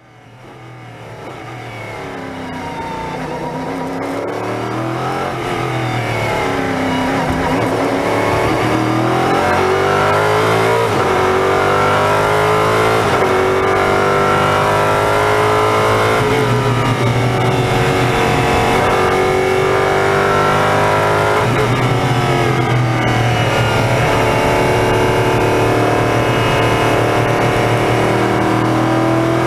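LMP3 prototype's Nissan V8 heard from the cockpit at racing speed, revving up through the gears and dropping back on the downshifts, over a steady rush of wind and tyre noise. The sound fades in over the first several seconds.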